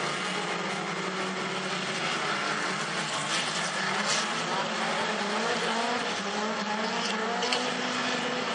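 Several standard-class autocross cars racing together on a dirt track, their engines revving and changing pitch as they accelerate and lift. Their notes overlap and rise and fall, with a few short sharp clicks among them.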